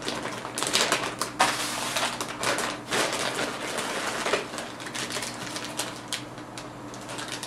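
Clear plastic zip-lock bag crinkling and rustling as it is opened and handled, with small plastic-bagged parts rummaged through inside, giving many short crackles and clicks.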